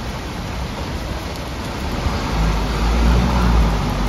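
Heavy rain hissing steadily over a flooded road. About two seconds in, the low rumble of a small dump truck grows louder as it approaches through the floodwater.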